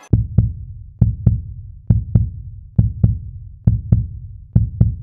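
A heartbeat-like pulse in outro music: a deep double thump repeating evenly, a little less than once a second.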